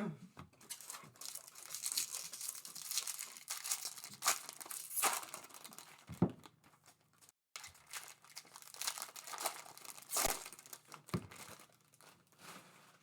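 Plastic trading-card pack wrapper crinkling and tearing as a pack is opened and handled, irregular crackles with a few soft knocks.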